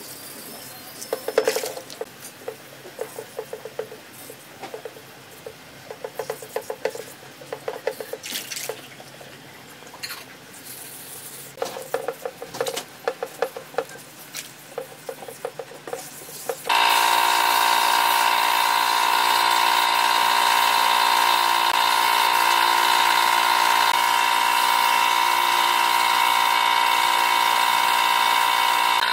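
Sandpaper rubbed by hand over a filler-coated car door panel, in quick runs of back-and-forth strokes. About two-thirds of the way through, a louder steady machine hum with fixed tones starts abruptly and runs on.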